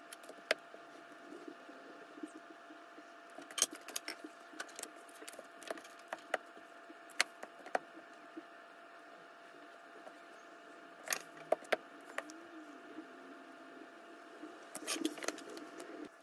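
Irregular light clicks and taps from leatherworking tools and pieces being handled at a workbench, with small clusters of them about a third of the way in and again near the end, over a steady faint hum.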